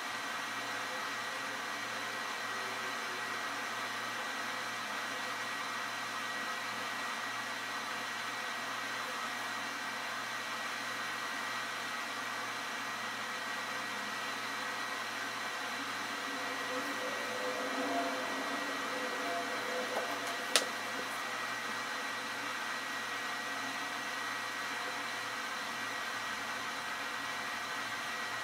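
Steady background hiss with a faint hum, and a single sharp click about twenty seconds in.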